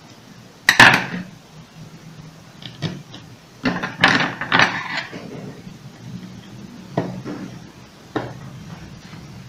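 Scattered clicks and knocks of the opened electric hair clipper's housing and parts being handled during reassembly, the loudest knock about a second in and a small cluster near the middle.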